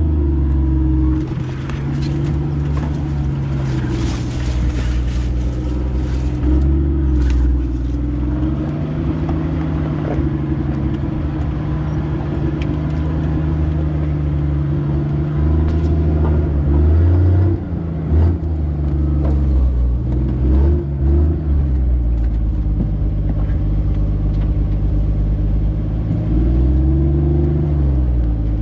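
Jeep CJ5 engine running at low revs as it crawls over a rocky creek bed, its note rising and falling with the throttle several times. Scattered knocks and clatter from the tyres and body working over rocks, most of them in the first several seconds.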